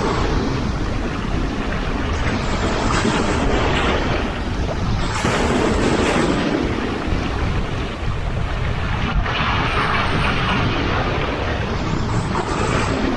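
Sea waves breaking and washing in surges every few seconds, over a steady low rumble of wind buffeting the microphone.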